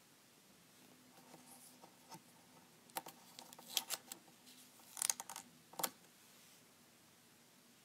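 Paper rustling and scraping as a strip of paper cards is slid sideways by hand across a paper phone mock-up. There are a few short, crisp rustles from about three to six seconds in, the loudest near the fifth second.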